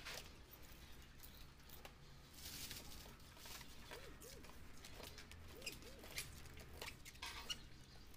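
Faint scratching and rubbing of fingers on an LCD panel's glass as old polarizer film and its adhesive residue are picked and rubbed off, in short scratchy strokes.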